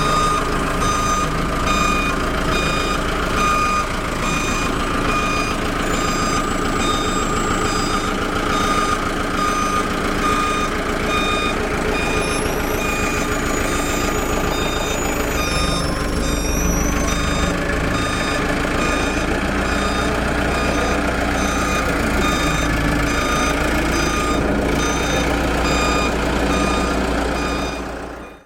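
Truck's reversing alarm beeping about once a second over a steady engine rumble; the beeps fade out about halfway through.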